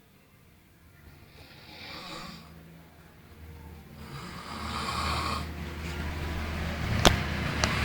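Snoring: slow breaths a few seconds apart that grow louder, the later ones carrying a steady low drone. A sharp click sounds near the end, with a fainter one just after it.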